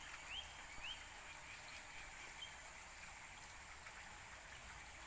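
Faint outdoor ambience with a steady hiss, and a small bird giving three quick rising chirps about half a second apart in the first second, then one fainter chirp a little later.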